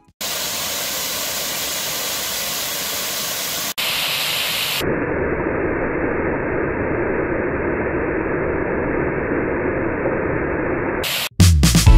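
Steady rush of a small waterfall spilling over a rock ledge into a shallow pool, in several takes cut together: the sound changes abruptly about four and five seconds in, and the last stretch is duller.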